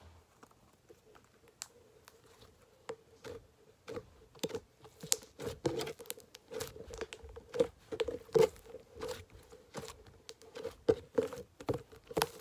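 Thick slime made with fake snow being squeezed and kneaded by hand close to the microphone: an irregular run of sticky clicks and crackles, sparse at first, then quicker and louder from about three seconds in.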